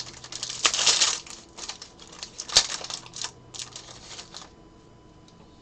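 Crinkling and rustling of a foil trading-card pack wrapper being opened and handled, in irregular bursts with a sharp click about two and a half seconds in.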